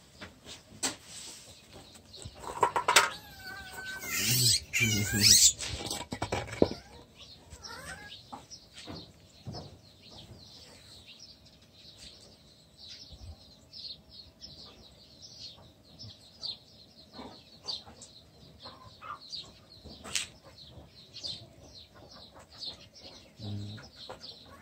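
A baby monkey's high-pitched squealing cries, loudest in a cluster a few seconds in, then many short, fainter squeaks.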